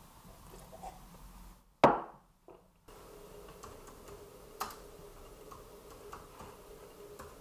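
A single loud knock about two seconds in, ringing out briefly. Then MacBook Pro laptop keys clicking a few times, slow and scattered, as a short word is typed.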